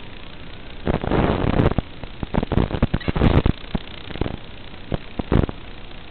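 Racing quadcopter's onboard FPV audio: a steady hum and hiss broken by loud crackling bursts of noise, a long run of them from about one to three and a half seconds in and a few short ones near five seconds.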